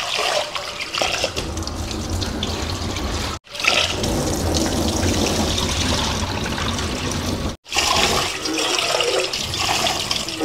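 Kitchen tap running into a metal pot in a stainless-steel sink, with water splashing and being poured off as rice is rinsed. The sound cuts out abruptly twice.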